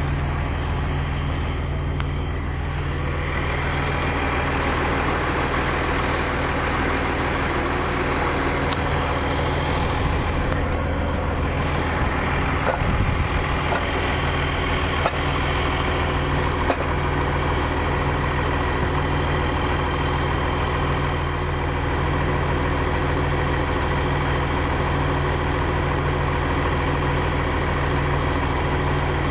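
Truck-mounted pump rig's engine idling steadily, with a few light clicks in the middle from work at the wellhead.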